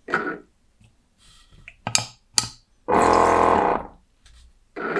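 Liquid filling machine's pump motor running for just under a second as it doses one small bottle, a steady whine that starts and stops abruptly about three seconds in. Before it come a couple of light clicks as bottles and the pedal are handled.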